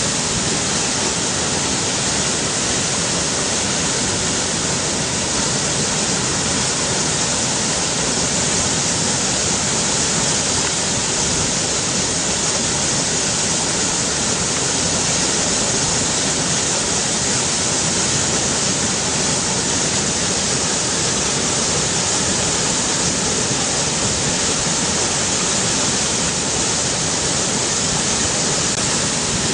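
River water rushing, a steady, even hiss of flowing water.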